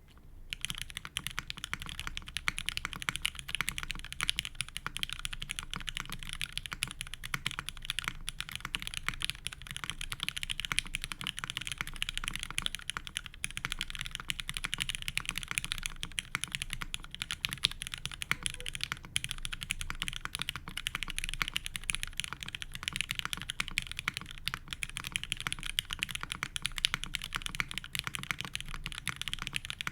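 Steady, fast typing on a custom mechanical keyboard with lubed MX Black linear switches in an aluminium top-mount plate, no dampening, and GMK keycaps. It makes a continuous stream of dense keystroke clicks and clacks that starts about half a second in.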